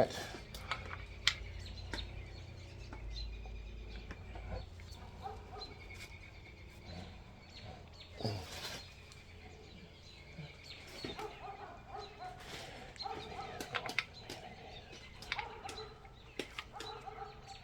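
Quiet clicks and taps of roller lifters being handled and dropped into an engine block's lifter bores. Birds chirp in the background.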